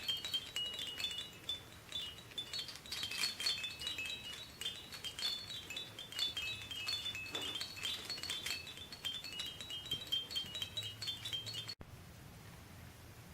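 High chimes tinkling in quick runs of short bright notes, cutting off suddenly near the end.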